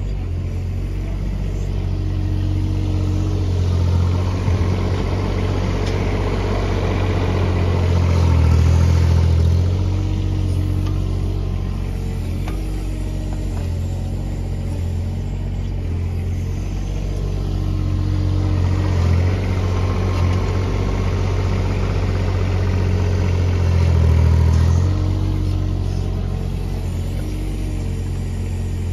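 Doosan DX19 mini excavator's diesel engine running steadily as it digs and lifts buckets of soil. It labours louder twice under hydraulic load, about a third of the way in and again near the end.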